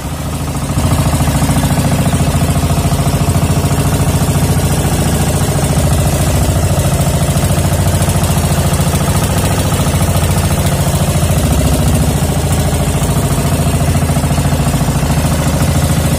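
Engine of a motorized outrigger fishing boat running steadily at trolling speed, with a fast, even knocking pulse.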